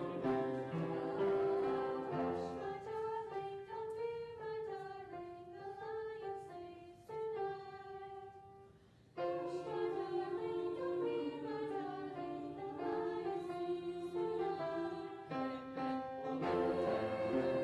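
School choir singing a song, dropping to a soft, thinning passage about eight seconds in, then coming back in full a second later.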